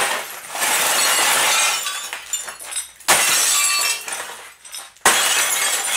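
Glass breaking as a Sony Trinitron CRT television is smashed for scrap: a stretch of shattering, then two sharp blows about two seconds apart, each followed by glass crashing and tinkling.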